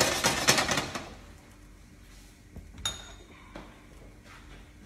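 A griddle pan rattling and scraping on a gas stove's metal grate as it is shifted by the handle, stopping about a second in. Later comes a single sharp metallic clink with a brief ring.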